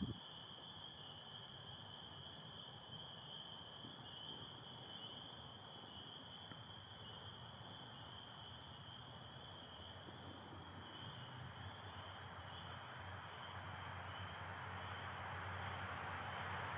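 A night chorus of spring peepers, a dense steady peeping. A fainter American toad trill sounds under it for the first few seconds. A low rumble grows louder over the last few seconds.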